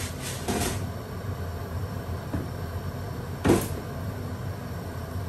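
Steady low background hum with two short knocks, a softer one about half a second in and a louder one about three and a half seconds in.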